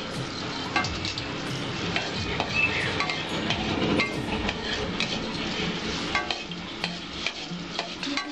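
Dried red chillies sizzling in hot oil in a metal kadai, stirred with a wooden spatula that scrapes and knocks against the pan many times.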